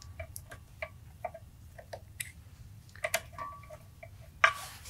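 Irregular light metallic clicks and taps of a hand tool working a drain plug loose on a Mud Buddy mud-motor transmission housing, two or three a second. A brief rustling burst comes near the end.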